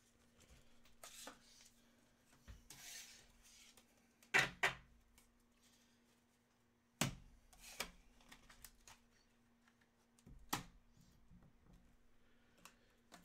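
A handful of sharp clicks and light knocks, spaced a few seconds apart, over a faint steady hum.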